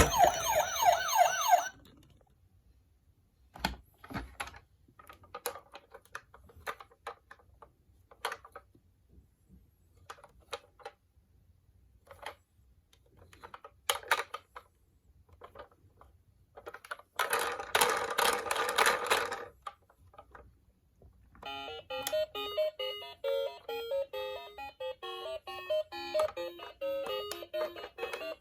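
A toy emergency-vehicle siren warbling and cutting off in the first two seconds, followed by sparse small plastic clicks and rattles. A second electronic toy sound plays for about two seconds some 17 seconds in, and a keyboard-like music tune starts a few seconds later.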